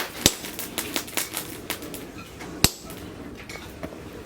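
Hammer blows on metal at the anvil: a loud strike at the start, another right after it, and a third about two and a half seconds in, with lighter taps between.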